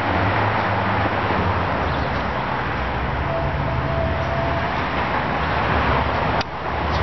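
Steady street traffic noise: a low vehicle rumble under a wash of road noise, briefly dropping out near the end.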